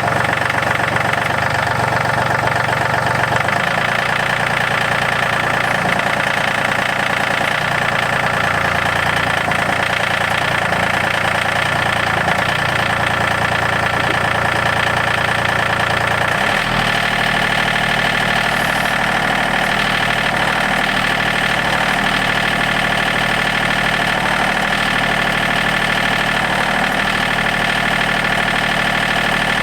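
Yanmar YT235 tractor's diesel engine running steadily, its low note shifting about three and a half seconds in and again about halfway through.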